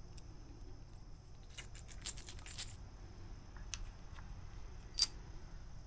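Small metal hardware on an outboard's ignition coil mount, nuts, washers and a through bolt, clicking and tapping as it is handled and threaded by hand. A sharp metallic clink about five seconds in rings briefly.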